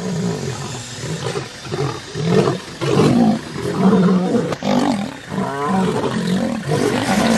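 Male African lions fighting at close range: loud, overlapping roars and snarls that keep coming without a break.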